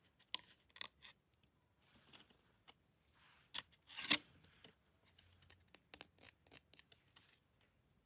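Clear plastic blister tray of a DDR4 RAM kit being handled as a memory stick is taken out and turned over: scattered plastic clicks and short crinkling rustles, the loudest about four seconds in.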